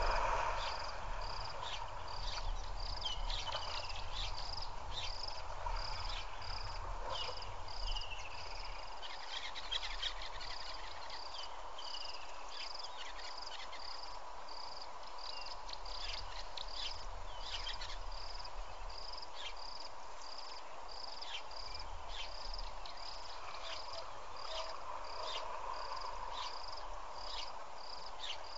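An insect chirping steadily on one high note, about two chirps a second, with scattered bird calls over a low rumble.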